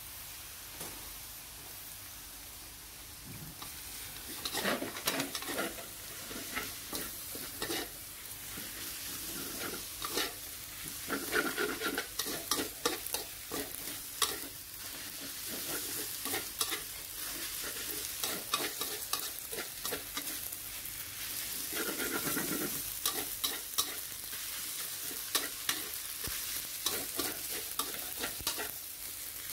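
Metal spatula scraping and tossing glass noodles, minced pork and cabbage around a wok over a steady frying sizzle. The sizzle runs alone at first; the irregular scraping and clattering strokes begin about four seconds in.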